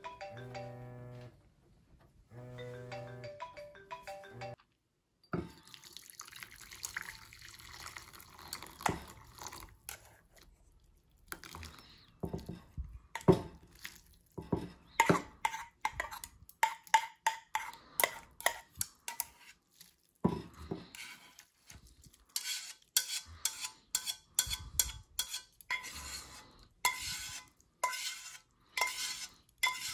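A few seconds of music, then cooked ramen noodles and broth poured from a stainless steel saucepan into a bowl, with chopsticks repeatedly clicking and scraping against the pot as they push the noodles out. The clicks come thick and fast in the second half.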